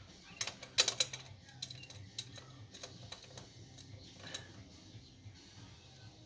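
Sharp metallic clicks and clinks of a wrench working an AN fuel-line fitting loose at a carburetor. A cluster of loud clicks comes about a second in, then lighter scattered ticks, over a low steady hum.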